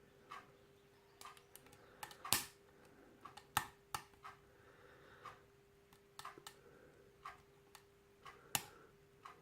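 A hook pick and tension wrench working in a small lock during single-pin picking: irregular light metallic clicks and taps as the pins are lifted, a few sharper ones about two, three and a half and eight and a half seconds in. A faint steady hum lies underneath.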